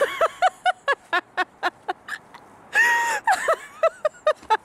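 A woman laughing in a rapid string of short, high-pitched bursts, broken about three seconds in by one short held squeal.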